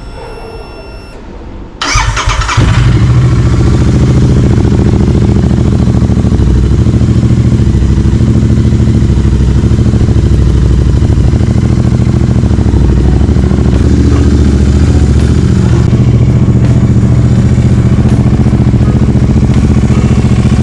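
Royal Enfield Continental GT 650's 648 cc parallel-twin, breathing through a Power Race slip-on exhaust, cold-started: the starter cranks briefly about two seconds in, then the engine catches and settles into a steady, loud idle.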